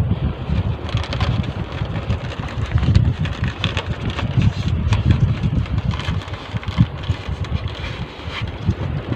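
Wind buffeting the microphone out on open water, a gusty low rumble throughout, with scattered short knocks on the boat.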